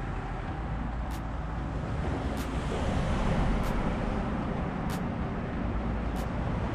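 Steady wind rumbling over the microphone, swelling a little in the middle, with a faint sharp tick about every second and a quarter.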